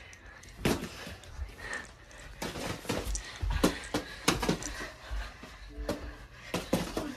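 Padded boxing gloves smacking as punches land, a string of about ten sharp hits at an uneven pace, with dull thumps of feet on the floor underneath.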